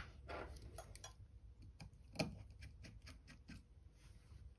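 Faint, irregular small clicks and ticks of a precision screwdriver working on the tiny screws that hold an iPhone's vibration motor, with one slightly louder tap about two seconds in.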